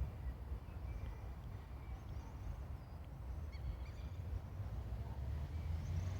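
Strong wind buffeting the microphone as a steady low rumble, with faint bird chirps in the background.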